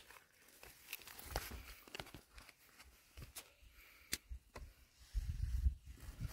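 Handling noises of a nylon mesh net and cord being worked over a heavy fish lying on dry dirt: rustling and scraping, with scattered sharp clicks, then a run of low bumps about five seconds in.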